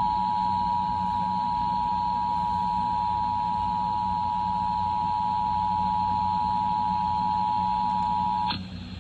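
Emergency Alert System two-tone attention signal, 853 Hz and 960 Hz sounding together, held steady over a low broadcast hum. It cuts off with a click about eight and a half seconds in.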